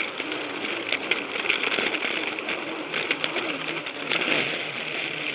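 Plarail toy train's small battery motor and gearbox whirring steadily, with light irregular clicks from the wheels on the plastic track, heard close up from a camera riding on the train.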